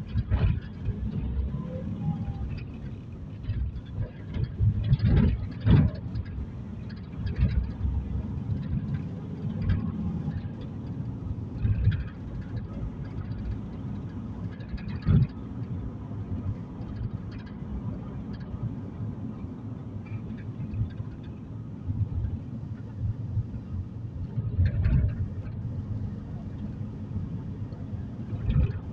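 Road noise inside a moving car's cabin: a steady low rumble of engine and tyres, with a few short bumps and knocks from the road now and then.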